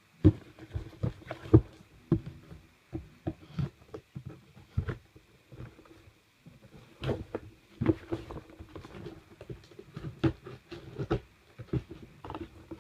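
A shipping package being worked open by hand: irregular rustling, scraping and sharp taps and knocks of the packaging, with pauses between bouts of handling.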